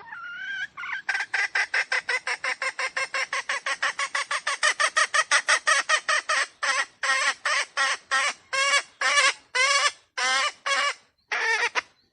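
Red junglefowl (wild chicken) calling in a fast run of short, harsh notes, about six a second. About halfway through, the calls slow to longer notes about two a second.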